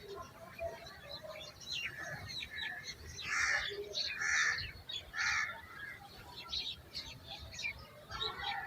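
Birds chirping in many short, high notes, with three louder harsh calls about three and a half, four and a half and five and a half seconds in.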